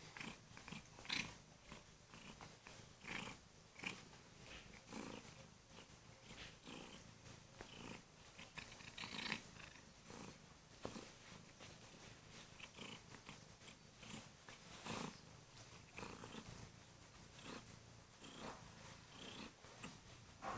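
Kurilian bobtail cat purring close by, broken by irregular soft clicks and rustles.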